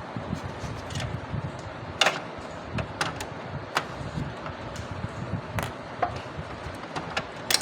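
HP LaserJet 3035/3005 printer mechanism running with a low rumble and irregular sharp clicks and knocks, the loudest about two seconds in and near the end.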